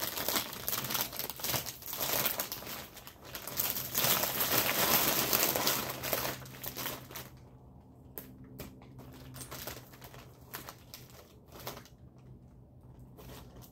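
Food wrapper being crinkled and crumpled in the hands, dense crackling for the first seven seconds or so, then thinning to scattered crackles and ticks.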